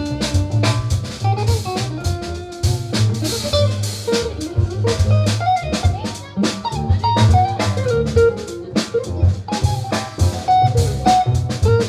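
Band playing an instrumental passage with no vocals: guitar lines over drum kit and bass guitar.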